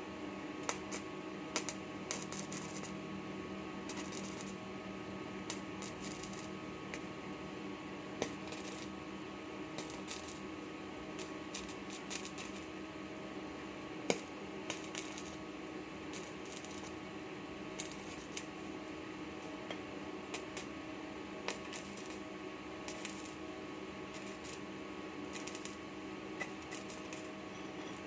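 Stick welding powered through a 12 V 1000 W inverter: irregular crackles and sharp clicks of the welding arc over a steady multi-tone electrical hum from the inverter and welding machine.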